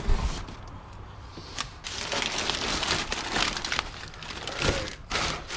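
Crumpled brown kraft packing paper crinkling and rustling as it is pulled out of a cardboard box, after a bump of the cardboard box lid right at the start.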